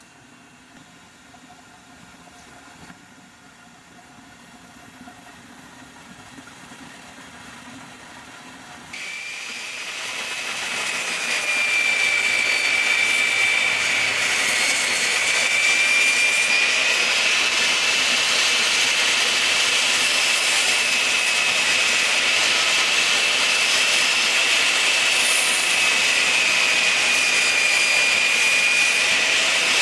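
Workshop power tool for cutting door frame material: a low hum for about nine seconds, then the motor starts up and climbs over a few seconds to a loud, steady high whine that wavers slightly in pitch.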